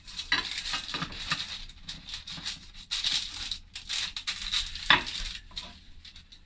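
Paper rustling and a metal cake pan being handled and turned upside down to release a baked cheesecake, with a sharp knock of the pan on the counter about five seconds in.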